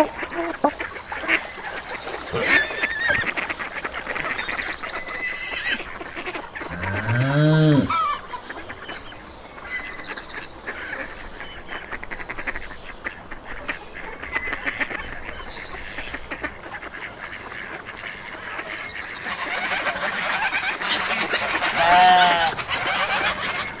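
Farmyard animals calling: a busy mix of short bird-like calls throughout, with one long, low call that rises and falls in pitch about seven seconds in, and louder calls near the end.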